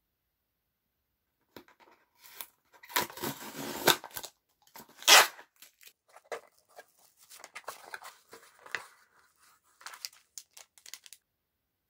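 Packing tape torn off a small cardboard box: a stretch of tearing about three seconds in and a sharp rip about five seconds in, the loudest sound, then the cardboard flaps and plastic wrapping crinkle and rustle as the box is opened.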